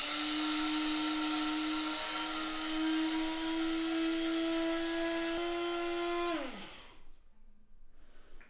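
Small electric blade grinder grinding golden flax seeds into meal: a steady motor whine that steps up slightly in pitch after about five seconds, then spins down with a falling pitch once released, a little over six seconds in.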